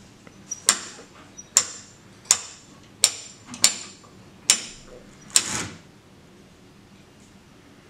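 Hand-cranked winch ratchet clicking as the crank is turned: seven sharp clicks, roughly one a second. The last one runs into a short rasp as the sandpaper-faced brick slips along the sandpaper board, the simulated fault slip or earthquake.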